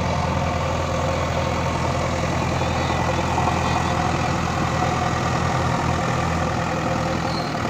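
JCB 3DX backhoe loader's diesel engine running steadily, heard up close.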